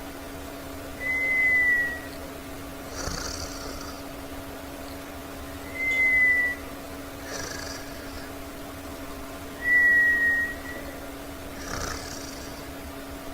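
Snoring in sleep with a whistle: breathy snores alternate about every four seconds with a loud, clear whistling tone that falls slightly, three whistles in all.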